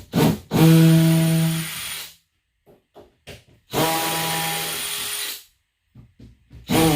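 A power drill running in three short bursts of about a second and a half each, with a steady whine.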